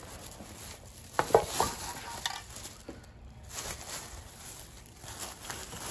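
Rustling and handling noises as supplies are taken out of a container, with a few sharp clicks and knocks about a second in.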